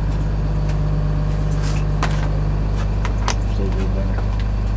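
Steady low drone of an idling truck engine, with a few sharp clicks and clinks of metal sockets handled in a plastic socket tray.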